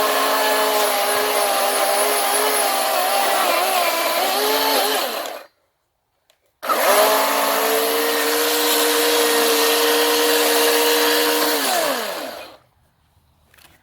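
Ryobi OCS1830 18V brushless battery chainsaw cutting through a log about 12 inches thick, its motor pitch wavering under load. The sound cuts out completely for about a second midway, then the saw runs steadily again and winds down to a stop near the end.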